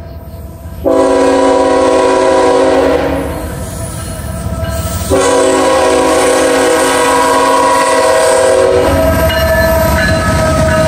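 Freight locomotive air horn sounding two long blasts as the train nears the grade crossing, a chord of several steady tones. From about nine seconds in, the lead diesel locomotive passes close by with a low engine and wheel rumble.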